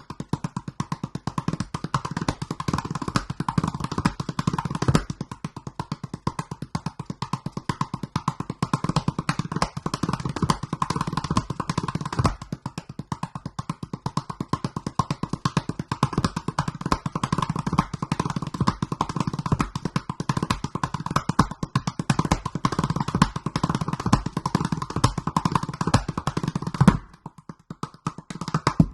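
A large 47 cm calabash gourd drum played by hand in a fast, continuous groove of deep bass strokes and sharper slaps. The playing stops briefly near the end, then starts again.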